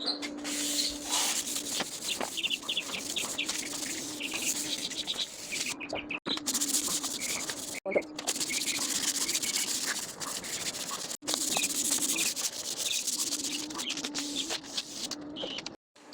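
Sandpaper scrubbing back and forth over varnished wood, scuffing it down before the next coat. The scratching stops abruptly a few times and then resumes.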